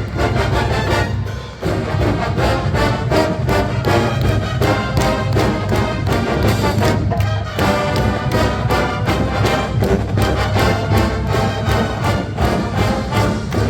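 College marching band playing at full volume: brass instruments such as trombones and trumpets over drums that keep a steady beat, with a brief lull about a second in.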